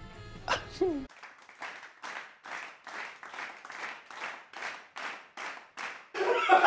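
A brief laugh, then a steady run of soft clap-like strokes, about two and a half a second, for several seconds. Near the end a voice breaks in with a loud, high, wavering cry.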